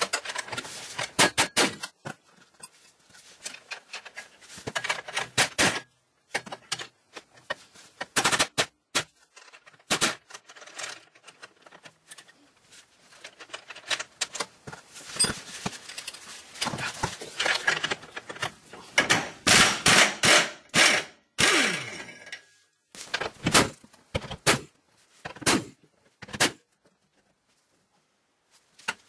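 Socket ratchet and extension working metal fasteners: sharp irregular clicks and knocks in short clusters, separated by pauses.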